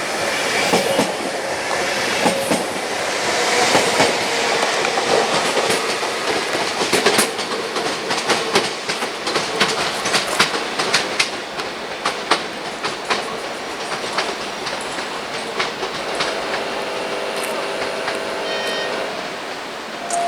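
A train rolling through a station, its wheels clattering over rail joints and points in a string of sharp clicks. Faint wheel squeal comes in over the last few seconds.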